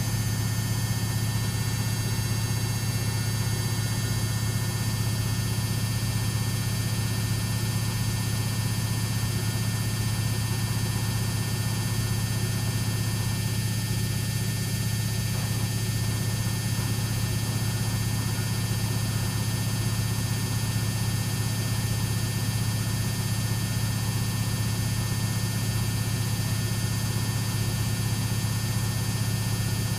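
Samsung WF6700 front-loading washing machine in its final spin, drum turning at a steady high speed with its AC brush motor giving a constant low hum and a hiss above it.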